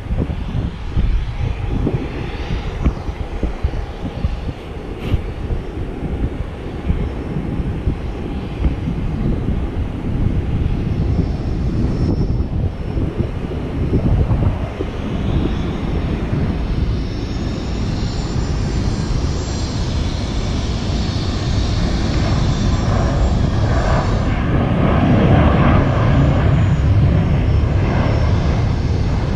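Jet airliner engines running, growing steadily louder through the second half as a high whine comes in, then easing slightly near the end.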